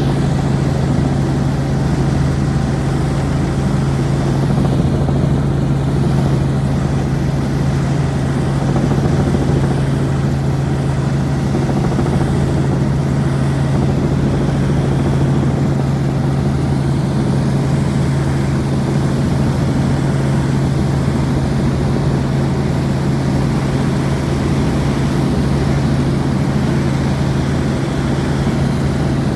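Helicopter in flight: a steady engine and rotor drone with a strong low hum that does not change.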